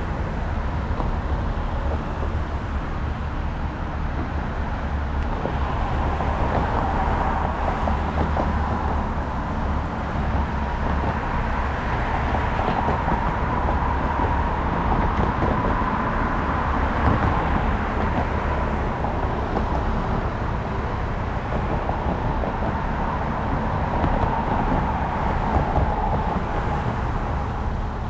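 A moving car's steady road and engine rumble, with a faint hum riding over it that drifts up and down a little.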